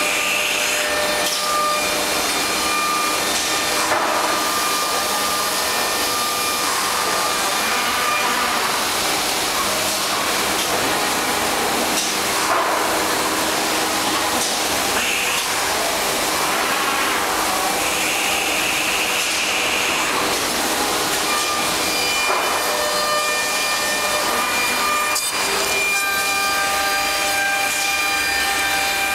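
HOMAG CNC woodworking center running: a steady hiss and whir of machinery with several steady whining tones, as its pneumatic suction-cup gantry handles panels. A few short hisses of air sound, and one lasts a couple of seconds midway.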